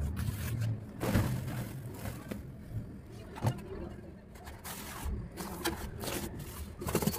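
Dry, dusty cement chunks being snapped and crumbled by hand, with a few sharp snaps amid scratchy crunching, played at double speed.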